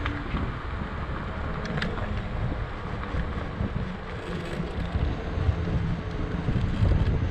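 Wind buffeting the microphone outdoors: a steady, uneven low rumble, with a few faint clicks scattered through it.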